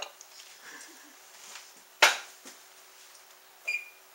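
Kitchen utensils knocking against cookware: one sharp knock about two seconds in, a lighter one just after, and a short ringing clink near the end, over a faint steady hum.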